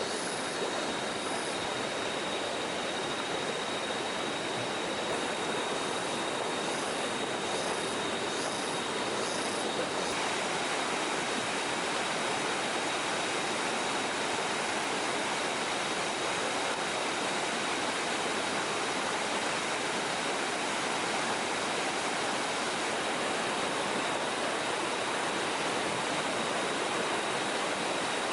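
Steady rush of a forest stream or waterfall flowing over rocks.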